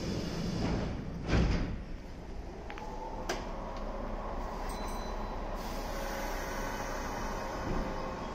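Kintetsu train doors sliding shut at a station platform, with a loud thump about a second and a half in and a sharp click a couple of seconds later. A steady electric hum from the stopped train follows.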